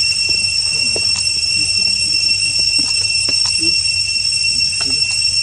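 Steady high-pitched drone of insects in the surrounding forest, with a few faint scattered ticks.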